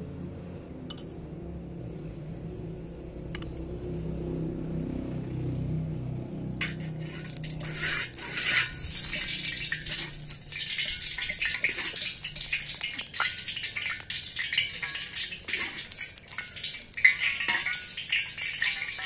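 Cooking oil starts sizzling and crackling in a hot steel wok-shaped pan over a wood fire. The sizzle comes on suddenly about a third of the way in, as the oil hits the hot metal, and goes on with crackles and a few clinks of a metal ladle against the pan. Before that there is only a low hum.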